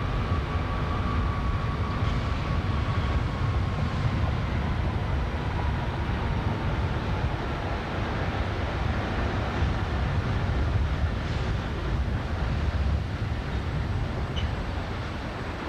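Steady low industrial rumble, with a faint whine that slowly falls in pitch during the first half.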